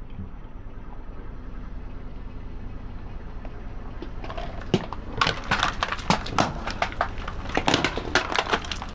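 Car tyre rolling slowly over broken plastic toy pieces and building bricks on asphalt. A low steady hum, then from about halfway through a dense run of sharp cracks and snaps as the plastic breaks under the tyre.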